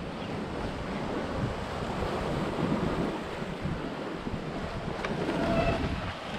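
Wind buffeting the microphone over the rush of seawater along the hull of a sailboat running under spinnaker: a steady noisy wash.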